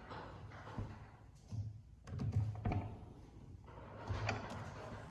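A few light knocks and clunks from a DeWalt 60V FlexVolt 12-inch sliding miter saw as its saw head is moved on the loosened bevel pivot.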